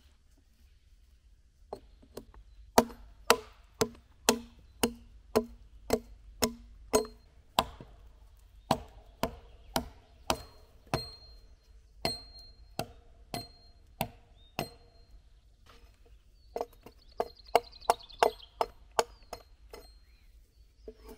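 Small axe striking into a log in a steady rhythm, about two sharp wooden chops a second, with a brief pause near the middle before the chopping resumes.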